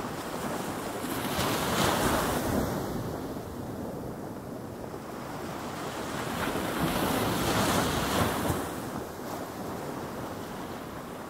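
Ocean surf washing in two slow swells of rushing noise, one about a second in and one around the middle, each rising and then falling away.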